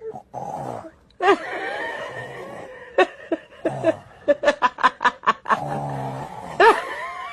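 A young boy imitating his father's snoring with long, drawn-out snore sounds, broken up by quick bursts of laughter in the middle and near the end.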